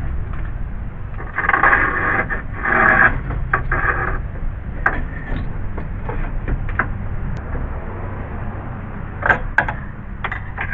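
Metal scraping and grating in three rough bursts as a steel pry bar works against the sheet-metal radiator support, followed by several sharp metallic clicks and taps, over a steady low rumble.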